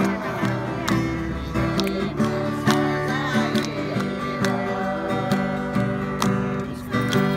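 Acoustic guitar strummed in a steady rhythm, several strokes a second.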